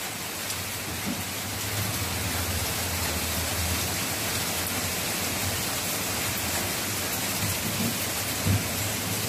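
Heavy typhoon rain pouring steadily, mixed with fast-flowing water rushing along a drainage canal, with a steady low rumble underneath.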